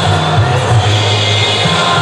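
Music with a bass line that steps between notes every fraction of a second.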